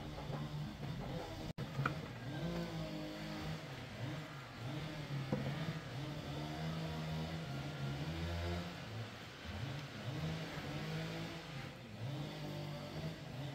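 An engine running, its pitch rising and falling again and again as the revs change, with a brief cut-out about a second and a half in.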